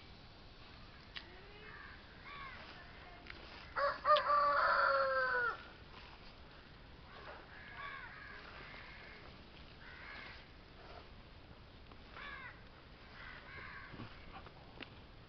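A rooster crowing once, a long call of under two seconds about four seconds in, with scattered short cawing calls of crows around it.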